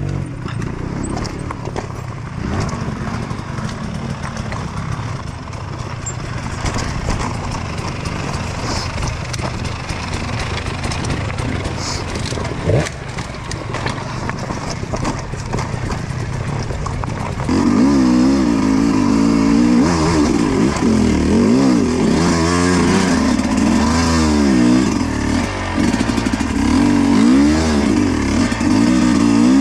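Dirt bike engine running steadily at low revs. A little past halfway it gets louder and revs up and down repeatedly in quick rises and falls of pitch.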